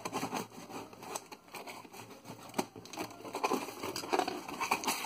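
A shipping package being opened by hand: packaging and bubble wrap crinkling and rustling, with irregular sharp clicks.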